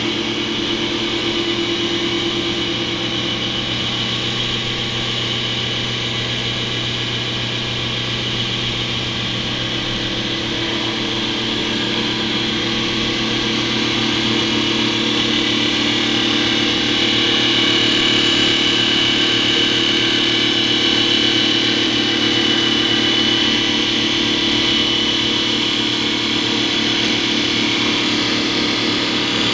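MotionCat TC650E CNC wood lathe running as it turns a baseball bat, with a steady motor hum under a hiss of the cutter on the spinning wood. The hiss gets louder about halfway through, then eases off.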